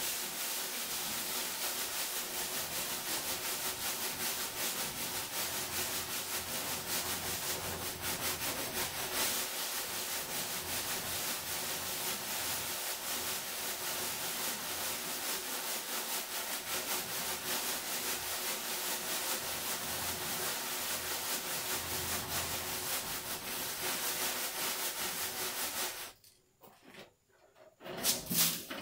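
Sand being sifted through a hanging wire-mesh sieve shaken rapidly back and forth: a steady hiss of sand grains rubbing over and falling through the mesh. It stops near the end, followed by a few louder knocks as the sieve is tipped to empty out the leftover coarse material.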